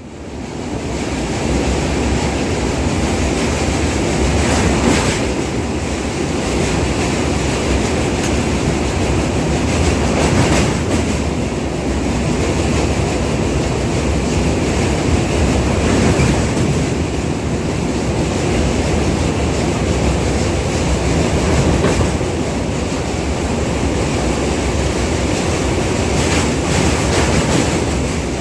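Passenger train running at speed over a long river bridge, heard from aboard: a steady rumble of wheels on rail, with a few louder clacks several seconds apart.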